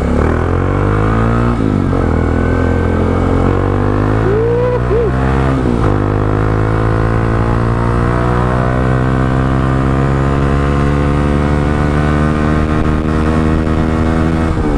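Kawasaki Rouser NS160 Fi's single-cylinder engine pulling up through the gears under way: its pitch climbs, drops at a gear change about a second and a half in and again about six seconds in, then rises slowly and steadily as the bike gathers speed.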